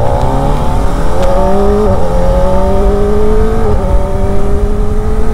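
Kawasaki Ninja ZX-4RR's 400 cc inline-four engine pulling under acceleration while riding, its pitch climbing steadily with two brief small dips, about two and four seconds in.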